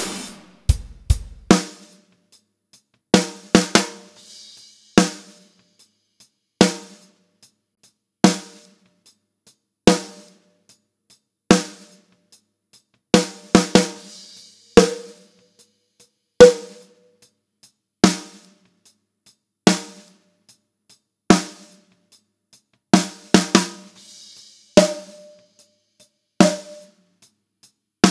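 Superior Drummer 3 virtual drum kit playing a slow, snare-led pattern: a snare hit about every second and a half, some doubled, with faint hi-hat ticks between. An EQ band on the snare top mic is being swept, so the snare's tone shifts, and a short ringing note hangs after a few of the hits.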